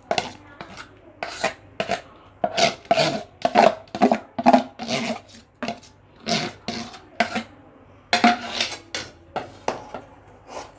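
Metal spoon scraping and knocking against cookware in quick, irregular strokes as ground almond and cashew paste is scooped into boiling milk in a kadai and stirred.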